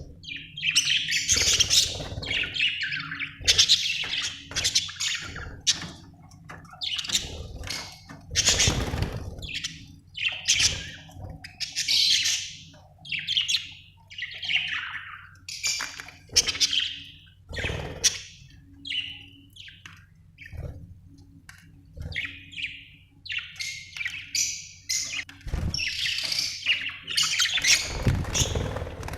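Budgerigars chirping and squawking in a continuous stream of short, high-pitched calls, broken by a few louder, noisier bursts.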